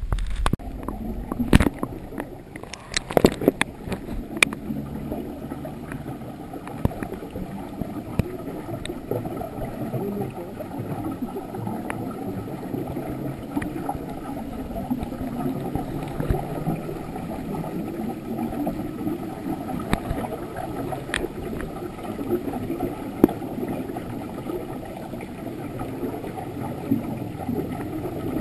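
Muffled underwater noise picked up by a camera in a waterproof housing: a steady low rumble with gurgling bubbles in a dive pool. A few sharp knocks sound in the first few seconds.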